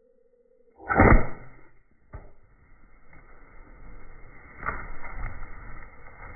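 A bow shot at close range: a sudden loud thump of the bow's release and the arrow striking about a second in. It is followed by rustling, scuffling and wing-flapping as the wild turkey toms jump and scatter.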